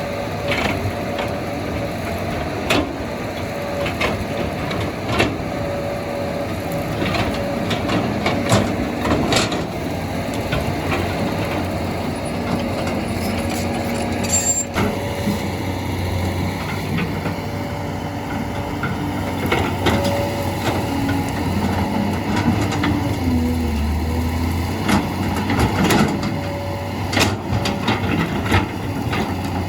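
Heavy diesel machinery running steadily, with frequent knocks and clanks and a brief drop in engine pitch past the middle.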